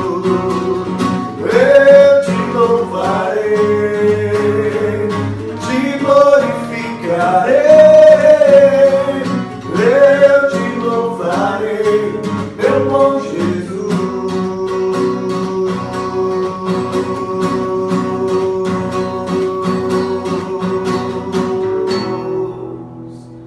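Closing instrumental outro of a worship song: acoustic guitar strumming with the band while a melody line glides up and down, then a final chord held for several seconds that fades out and stops at the end.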